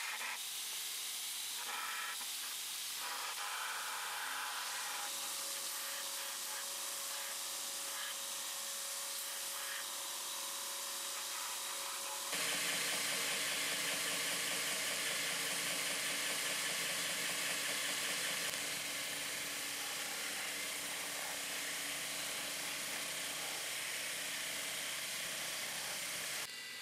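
Ameribrade belt grinder running, its abrasive belt hissing steadily as a steel knife guard is held against it and ground. About twelve seconds in the sound gets a little louder and a low hum joins in.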